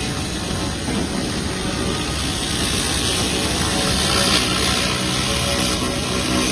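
Hand-held pulsed fiber laser cleaner stripping paint off a metal bar: a steady, dense hiss as the coating is blasted off, growing slightly louder as it goes.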